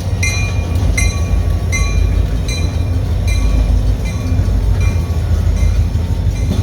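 A freight train hauled by Escanaba & Lake Superior EMD SD40-series diesel locomotives passing close by, a steady heavy rumble of engines and rolling cars. Over it a railroad crossing bell dings at an even pace, about two to three strikes a second.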